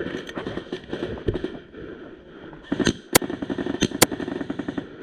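Airsoft gunfire: scattered shots, then about three seconds in a rapid automatic burst of clicking shots, with a few loud sharp cracks among them.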